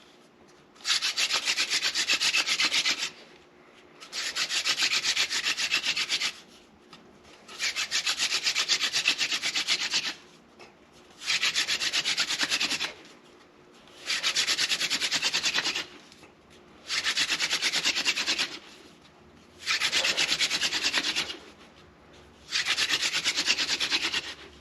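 Hand drill friction fire: a seepwillow spindle spun back and forth between the palms, its tip grinding into a sotol hearth board with a dry, scratchy rubbing. It comes in eight runs of about two seconds each, with a pause of about a second between them as the hands go back to the top of the spindle.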